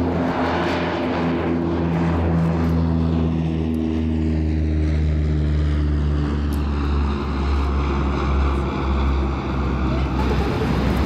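Grumman E-2C Hawkeye's twin turboprop engines droning as it climbs away after takeoff: a steady low propeller hum, with tones that slide lower in pitch over the first few seconds as it passes.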